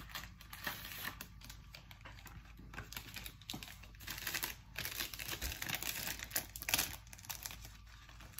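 A Pepero biscuit-stick box and its wrapper being handled and opened by hand: irregular crinkling and rustling of cardboard and plastic packaging, with the loudest rustles about four and a half and seven seconds in.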